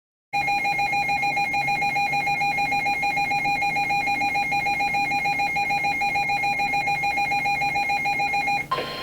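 Electronic emergency-alert alarm: a loud, rapidly pulsing beep at one fixed pitch for about eight seconds. Near the end it cuts to a single steady tone, the NOAA Weather Radio warning alarm tone that comes before a spoken warning.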